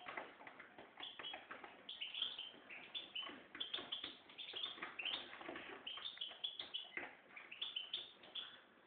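Goldfinch mule, a goldfinch × canary hybrid, singing a rapid run of short twittering chirps and trills with only brief pauses.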